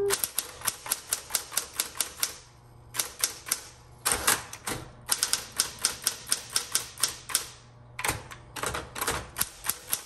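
Smith-Corona Electra 210 electric typewriter being typed on: quick runs of sharp key strikes, about five a second, in four runs with short pauses between them, over the steady low hum of its running motor.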